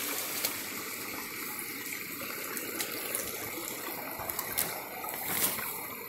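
Small rocky forest stream running steadily over and between stones, with a few light clicks.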